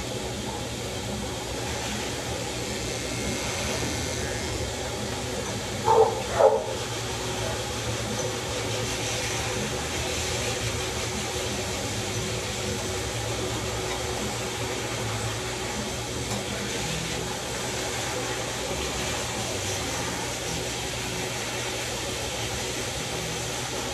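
Corded electric dog clippers running steadily as they cut through a Labradoodle's curly coat. About six seconds in come two short, louder pitched sounds, half a second apart.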